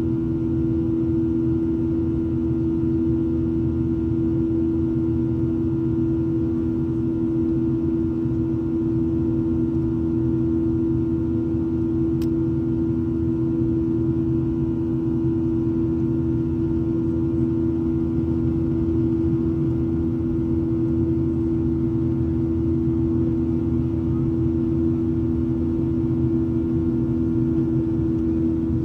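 Steady drone of a Boeing 737-800's CFM56-7B jet engines and the airflow, heard from inside the passenger cabin in flight, with a constant low hum running through it.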